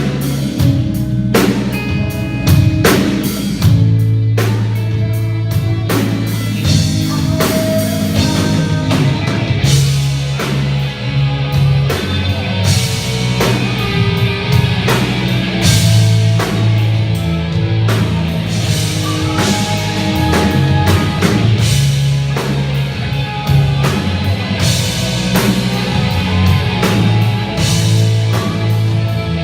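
Rock band playing: a drum kit beating steadily over electric guitar and a bass line.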